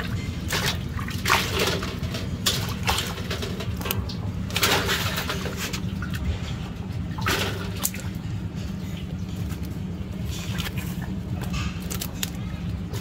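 Live fish splashing in a basin of water and thrashing in a plastic basket: irregular wet slaps and splashes every second or two, over a steady low rumble.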